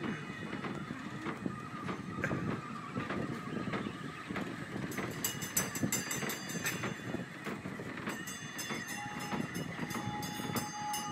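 Kiddie fire-truck carousel ride running: a steady rumble of the little cars rolling around their circular track, with scattered clicks and rattles.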